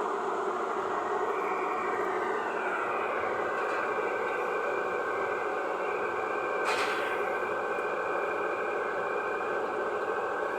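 Excavator running steadily, with a constant high whine over the engine noise and a single sharp clank about seven seconds in.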